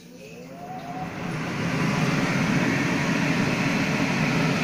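Kitchen range hood extractor fan switched on: its motor whine rises over about the first second as it spins up, while the rush of air grows louder for about two seconds and then runs steadily.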